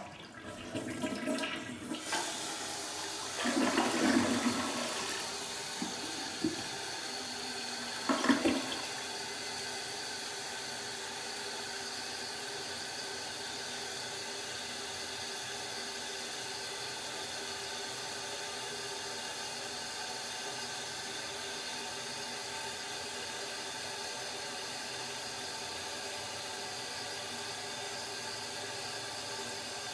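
Toilet flushing: water rushes through the bowl for several seconds, with two louder surges, then settles into the steady hiss of the tank refilling. A normal, complete flush.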